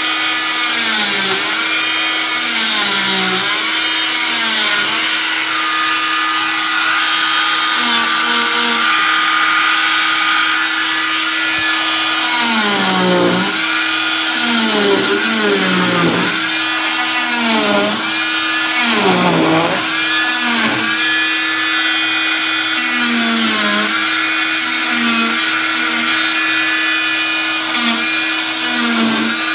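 Oscillating cast saw with a vacuum hose attached, running with a steady whine while it cuts through an arm cast. Its pitch dips again and again, mostly around the middle, as the blade is pressed into the cast.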